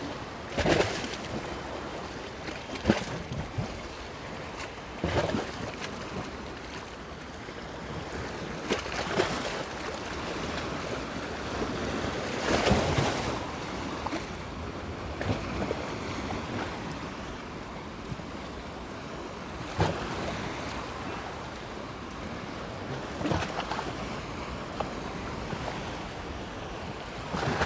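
Sea surf: small waves breaking and washing up a beach, a steady wash with louder surges every few seconds, with some wind on the microphone.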